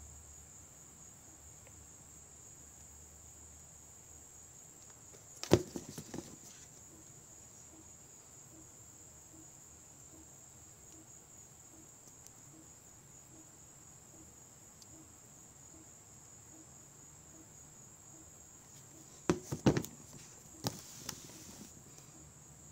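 Handling noise as the shoe and camera are moved close: a few sharp clicks and taps about five seconds in and a cluster of them near the end, over a steady faint high-pitched whine.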